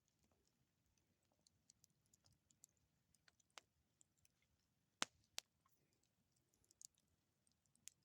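Campfire burning with scattered crackles and small pops, the two loudest pops close together about five seconds in.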